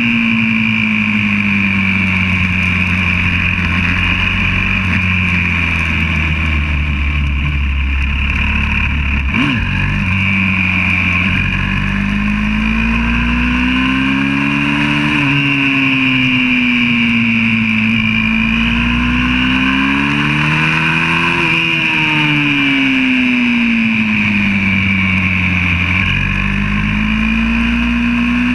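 Onboard sound of a YCF 125cc four-stroke single-cylinder pit bike engine running hard on track, its pitch climbing steadily under throttle and dropping back several times as the rider shifts or backs off for corners. A short sharp knock or blip about nine seconds in.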